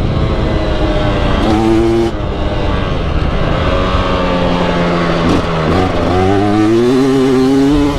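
KTM 300 EXC two-stroke enduro motorcycle engine running under way, its pitch rising and falling with the throttle: a short rise in revs about a second and a half in, and a longer climb in revs over the last two seconds.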